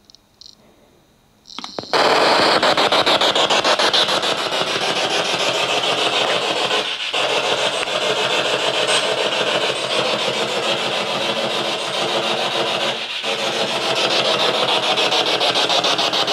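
A ghost-hunting spirit box sweeping radio stations: a loud, rapidly chopped hiss of static that cuts in about two seconds in and runs on, dipping briefly twice.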